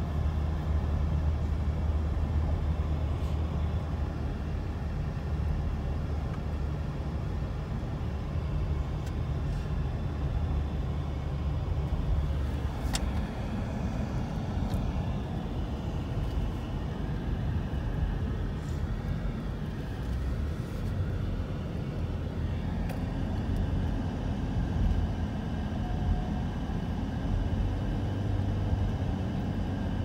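Steady low rumble of a moving road vehicle, with a few faint clicks.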